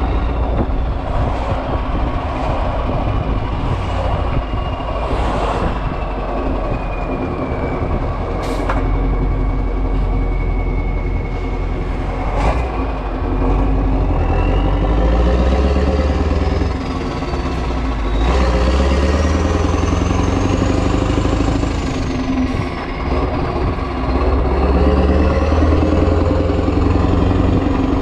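Renault Magnum's 16.4-litre Mack E9 V8 diesel with an open exhaust pipe, running under load on the road. A high turbo whistle sinks slowly at first, then rises and falls several times with engine speed in the second half. A few short sharp clicks come through.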